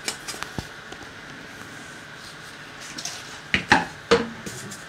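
Handling noises as a sheet of glass and a plastic bottle are moved about during cleaning: a few light clicks, then three louder knocks and scrapes in the second half. A faint steady high hum runs underneath.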